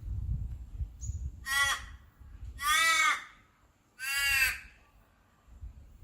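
Three short animal calls, each about half a second long, spaced about a second apart; each rises and falls slightly in pitch.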